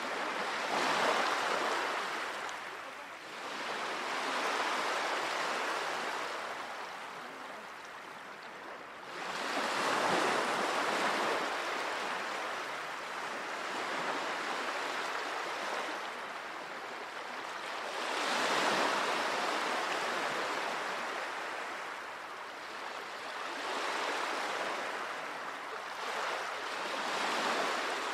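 Sea waves washing onto a shore, a steady rush that swells and fades every several seconds.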